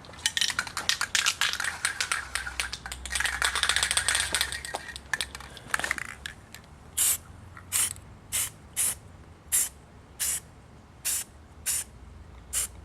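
Aerosol can of flat black Rust-Oleum spray paint in use. Rattling clicks and a long hiss fill the first half, then about nine short spray bursts come roughly one a second.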